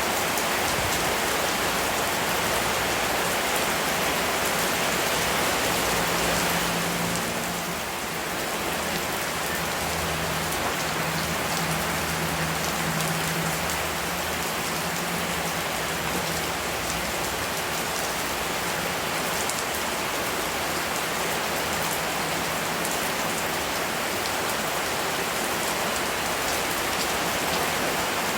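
Steady rain falling: a dense, even hiss that softens briefly about seven seconds in.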